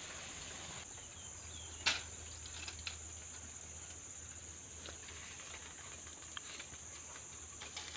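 Insects trilling steadily at a high pitch in a bamboo thicket, with one sharp knock about two seconds in and a few faint clicks and rustles from working among the bamboo.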